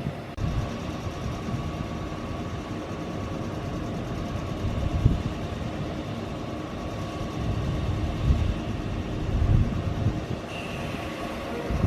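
An electric train's steady hum with a faint whining tone, under uneven low rumbling.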